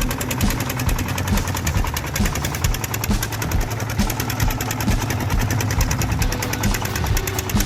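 Farm vehicle engine running steadily under load, with a rapid, even chugging rhythm.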